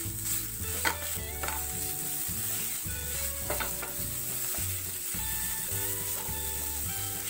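Minced soya chunks frying and sizzling in a non-stick pan while a wooden spatula stirs and scrapes through them. A few sharper scrapes or knocks of the spatula come about a second in and again at three and a half seconds.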